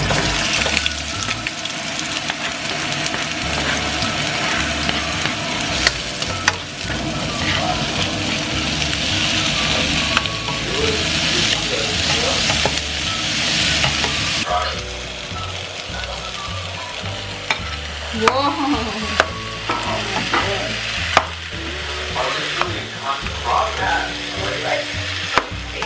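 Onion, tomatoes and cubed pork belly sizzling as they fry in a hot non-stick wok, stirred with a metal utensil. The sizzle is loudest through the first half and softer after about 14 s, with sharp clicks of the utensil against the pan in the second half.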